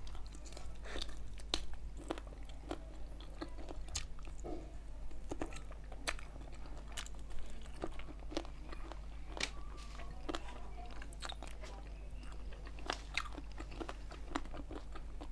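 Close-miked chewing and biting of chicken feet: many short, sharp wet clicks and crunches of mouth and food, irregular throughout. A steady low hum runs underneath.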